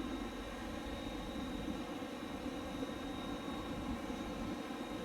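A steady mechanical drone with a thin high whine running through it.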